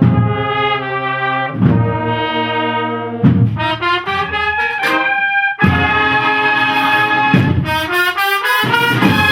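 Cornet-and-drum band playing: sustained brass chords over drum strokes that fall about every second and a half to two seconds.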